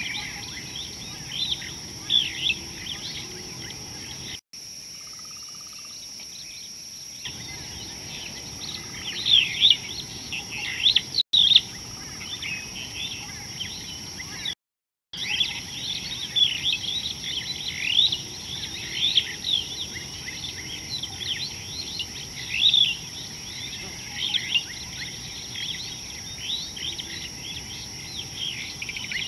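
Many small birds chirping and twittering in a dense, continuous chorus of short high calls, over a steady high insect-like drone. The sound drops out briefly a few times.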